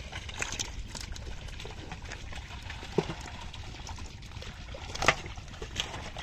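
Hands scrabbling through shallow muddy water and mud full of small fish: wet splashing and squelching, with a few sharper slaps, the loudest about three and five seconds in.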